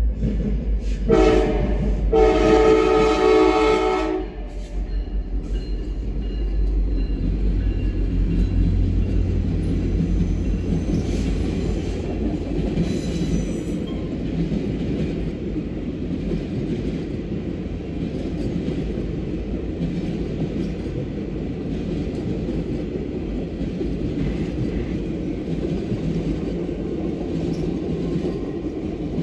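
Diesel locomotive horn sounds a short blast and then a longer one. After that the train rolls past with a steady low rumble and wheel noise.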